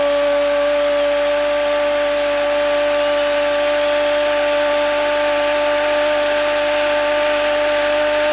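Sports commentator's long goal cry, one 'gooool' held at a single steady high pitch, over a stadium crowd cheering.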